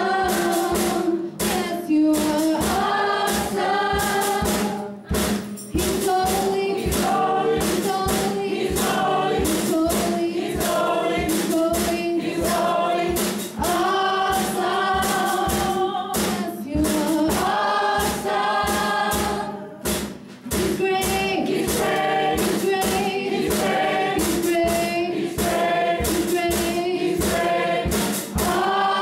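A girl singing a gospel song into a microphone and accompanying herself on acoustic guitar, with a drum kit keeping a steady beat.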